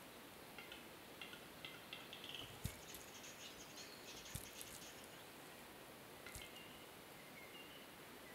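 Male western capercaillie giving its lek display: three sharp, separate clicks a couple of seconds apart, over faint short high notes.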